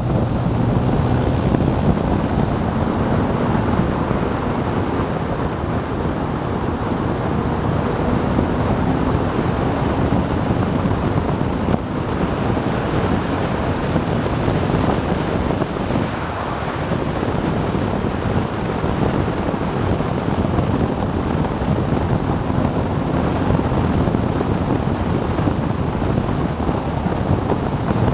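Heavy wind rush on the camera microphone of a moving motorcycle, with the BMW R1200GS Adventure's boxer-twin engine running faintly underneath.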